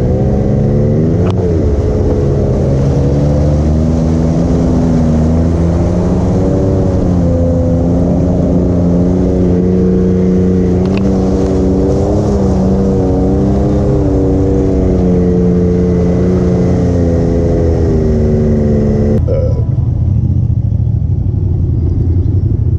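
Can-Am Maverick X3 side-by-side's three-cylinder engine running on a rough trail, heard from on board, its pitch rising and falling as the throttle is worked. Near the end the sound cuts abruptly to a duller, steadier engine rumble.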